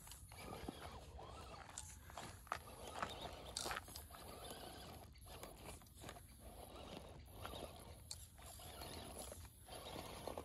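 Quiet, irregular crunching and scuffing on a dirt and stone trail, a sharp crunch every second or so.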